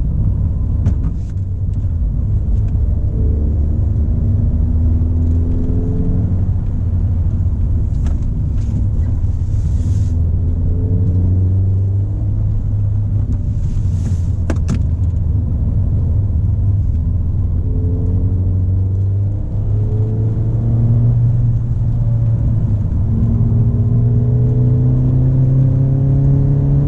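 Ford Fiesta ST driving, its engine running with a heavy low rumble. The engine note drifts in pitch and climbs higher twice in the second half.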